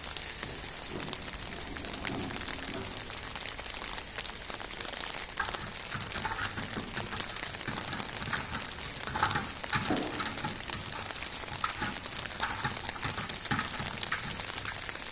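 Outdoor ambience: a steady high hiss with faint scattered chirps through the middle and a brief falling sound about ten seconds in.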